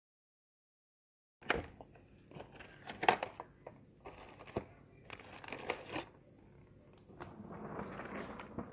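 Digital silence for about the first second and a half, then plastic food packaging being handled: irregular sharp clicks and crinkling, loudest about three seconds in.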